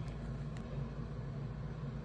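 Steady low background hum, with a couple of faint clicks near the start.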